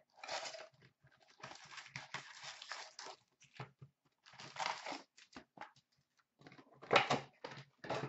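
Cardboard Upper Deck Series One hockey card retail box being torn open and its wrapped packs pulled out, a run of separate tearing and rustling bursts, the loudest about seven seconds in.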